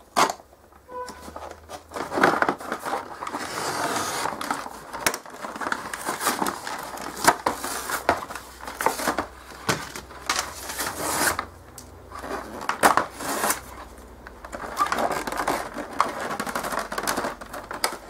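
A scale model truck's clear plastic blister pack being handled and opened by hand: irregular crinkling and crackling of stiff plastic, with many sharp clicks.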